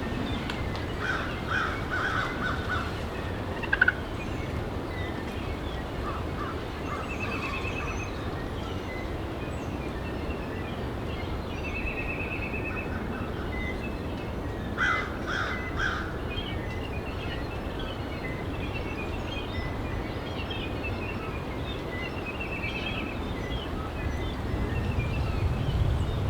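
Strong wind buffeting the microphone, with several short series of turkey calls rising above it, the sharpest about four seconds in and another run about fifteen seconds in.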